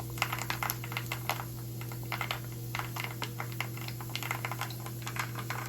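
Pieces of dried pork jerky frying in hot oil, sizzling with dense, irregular crackles and pops. A steady low hum runs underneath.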